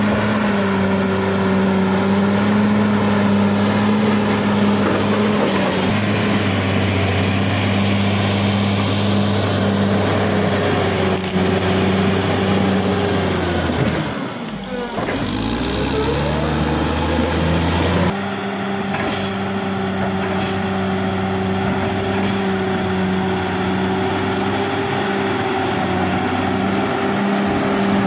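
CAT D6R XL bulldozer's diesel engine running steadily at working speed. About halfway through, the engine note sags and then climbs back. About two-thirds of the way in, the sound changes abruptly to a slightly different steady running note.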